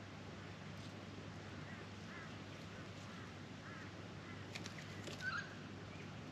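Australian magpie giving short soft calls, a few faint ones and then a louder one near the end, with a quick run of sharp clicks just before it.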